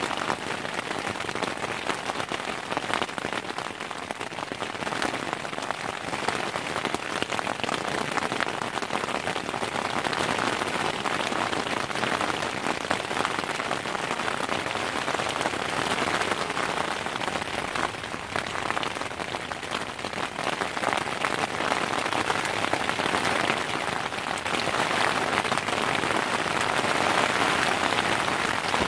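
Steady rain falling on a surface: a continuous dense hiss of countless small drop impacts.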